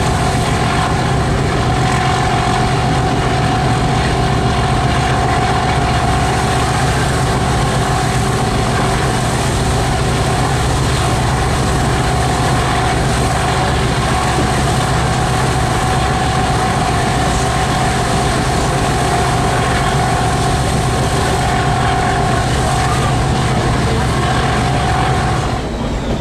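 Class 37 diesel locomotive working steadily under power, heard through a coach's open droplight window: a loud, even engine drone with a steady high whistle over it. Near the end the whistle stops and the sound drops away.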